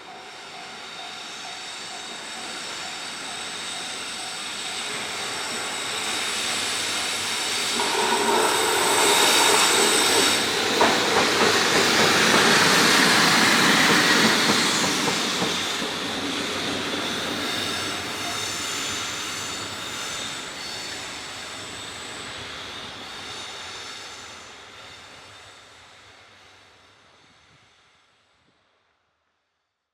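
A train hauled by an EF65 electric locomotive passing close by. It grows louder to a peak about ten to fifteen seconds in, then fades away. A steady high wheel squeal runs through the pass.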